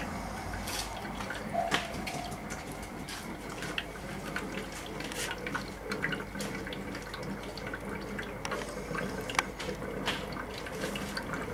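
Wood gas bubbling through the water in a homemade bubbler jar: a continuous irregular patter of small bubbles, the sign that the heated wood is giving off gas well.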